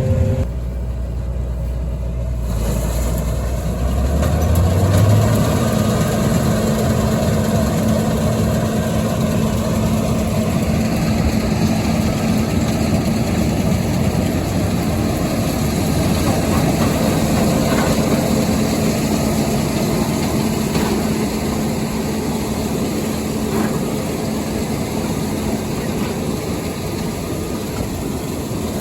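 John Deere 9400 combine running with a soybean header, engine and threshing machinery going steadily; the engine note rises about four seconds in, then holds.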